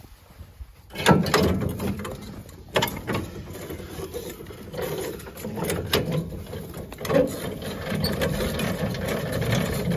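Trailer tongue jack being cranked to lower the coupler onto the truck's hitch ball: a steady run of ratcheting, geared clicking with several sharper metal clanks, starting about a second in.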